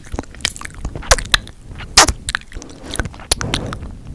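Kissing mouth sounds: a string of lip smacks and pops, irregularly spaced, the loudest about two seconds in.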